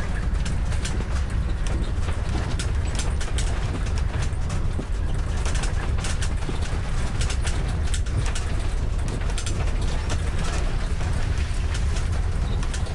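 Steady low rumble of a vehicle driving slowly over a rough dirt road, with birds calling and short high chirps scattered over it.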